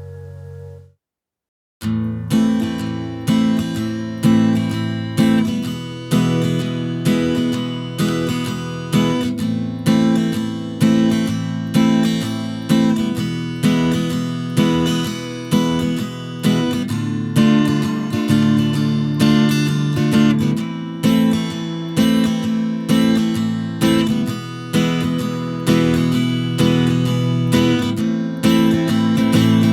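Music: the end of one song fades out, and after about a second of silence a new song opens on a steady strummed acoustic guitar, with no singing.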